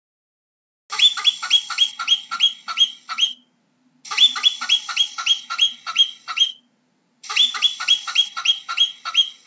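Marmot alarm calls: three rapid runs of short, high whistles that slide downward, about nine or ten calls in each run, the runs lasting two to three seconds each with short pauses between.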